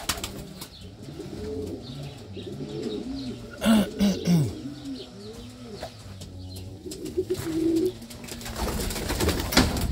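Domestic pigeons cooing over and over, low coos that rise and fall in pitch, loudest about four seconds in. A short flutter of wings right at the start as a pigeon takes off.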